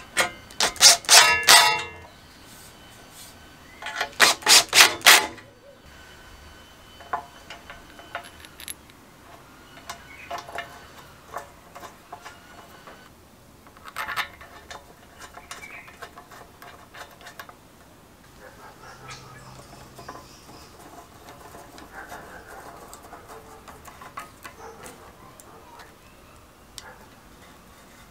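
A small power driver runs in two short bursts of about a second each, tightening bolts on the engine's fan shroud. Then scattered light clicks and taps of small metal parts being handled.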